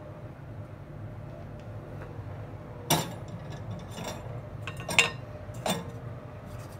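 Kitchenware clinking and knocking against a stainless steel pot of stir-fried bok choy, a wooden spatula stirring and a glass bowl at the rim: four sharp hits spread over a few seconds, over a steady low hum.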